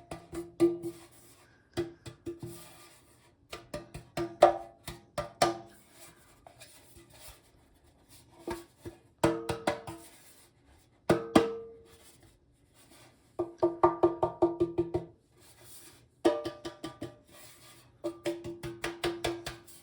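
A metal utensil knocking against a ceramic bowl in irregular runs of quick, ringing taps, with short pauses between runs.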